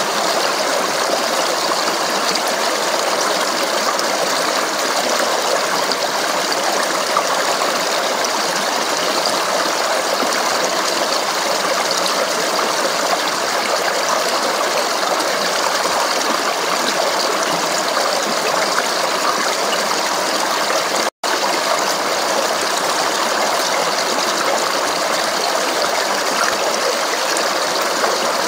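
Stream babbling steadily over rocks, a continuous rush of flowing water. The sound cuts out for an instant about three-quarters of the way through.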